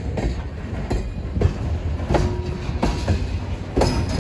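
Freight cars of a CN grain train rolling past, their wheels clacking over rail joints above a steady rumble, with a few brief faint wheel squeals.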